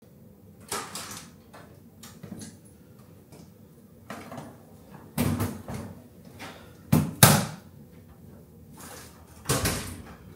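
Hotel room entry door opened and shut as luggage is brought in: a string of separate clunks and thuds, the loudest two close together about seven seconds in.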